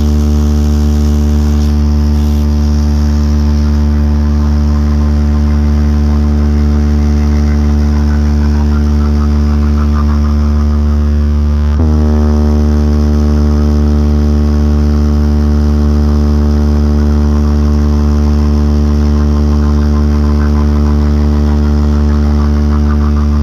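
Loud sustained electronic bass drone from a DJ sound-check track: a steady low hum with many overtones. About halfway through, its pitch briefly swoops and then settles back to a steady hold.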